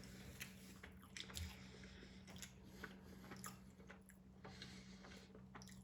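A person chewing a soft sub sandwich with the mouth close to the microphone: faint, irregular wet smacks and clicks over a low steady hum.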